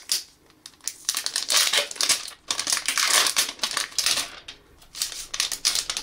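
Clear plastic protective film crinkling and crackling as it is peeled off a smartphone, in irregular short crackles that start about a second in and run densely until near the end.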